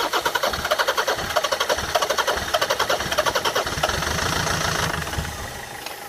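Land Rover Freelander's 2.0 L-series four-cylinder turbodiesel being cranked on the starter, with rapid even pulses of the compressions at about six a second; the pulsing smooths out around four seconds in and then dies away near the end without the engine running. It is failing to start because of an air leak in the fuel pipes.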